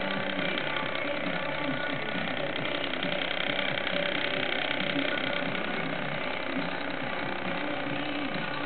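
Small electric motor of a rotating display turntable running with a steady hum.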